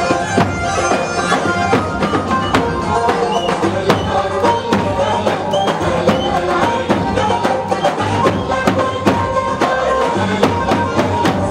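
Zaffeh music from large tabl drums struck with sticks in a steady rhythm, under a saxophone melody of long held notes.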